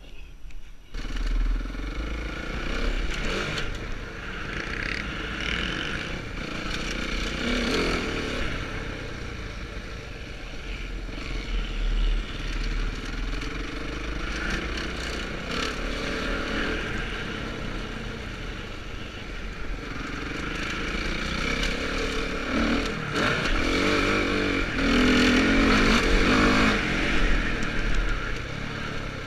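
Motocross bike engine, heard from the rider's helmet. It picks up sharply about a second in, then revs up and drops back again and again as the bike accelerates and shifts along the track.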